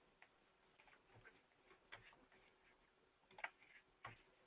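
Near silence: room tone with a few faint, scattered clicks, the loudest about three and a half seconds in and another just after four seconds.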